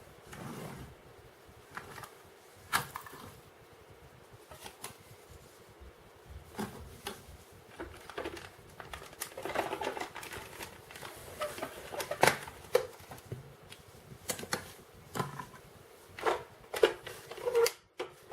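Plastic toy being handled: irregular clicks, knocks and light rattling, with the sharpest knocks about twelve seconds in and near the end.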